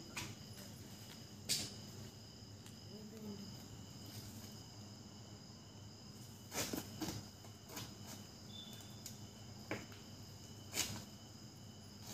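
Steady night chorus of crickets trilling, broken by a few sharp clicks and knocks: one about a second and a half in, a pair near the middle and two more near the end.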